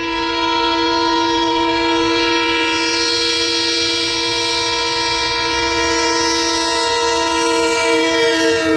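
Diesel locomotive's multi-tone air horn sounding one long continuous blast, over the low rumble of the train. The pitch starts to drop near the end as the locomotive passes.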